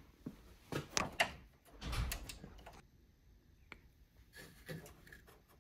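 Hands handling small metal hardware at a vending machine door, with nuts being fitted onto the card-reader bracket's studs: scattered light clicks and knocks, and a duller knock about two seconds in.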